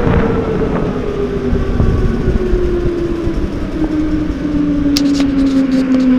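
Go-kart running with its motor whine gliding steadily down in pitch as the kart slows, over the rumble of the ride. Near the end come a few sharp knocks and rubs from a hand handling the camera.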